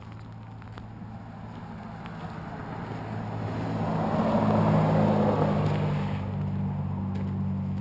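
Diesel engine of a loaded Kenworth T800 log truck running as the rig pulls slowly past on gravel, with the trailer's tyres rolling by. The sound grows to its loudest about four to five seconds in as the trailer passes close, then eases off.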